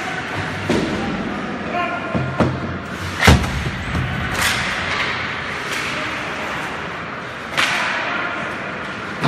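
Ice hockey play heard from the bench: about six sharp knocks of puck, sticks and bodies against the boards and ice, the loudest about three seconds in, over a background of voices.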